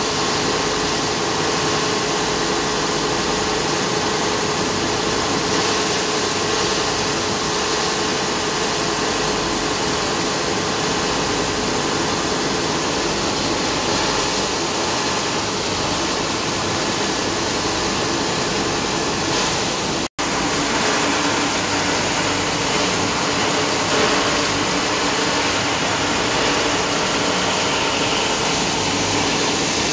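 Crushing and grinding machinery of an aluminium-plastic separating line running: a steady, loud, dense mechanical noise with a steady hum through it. It drops out for an instant about twenty seconds in.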